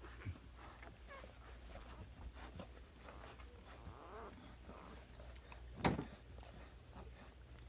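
Newborn puppies making faint, short high squeaks and whimpers. A single sharp knock about six seconds in is the loudest sound.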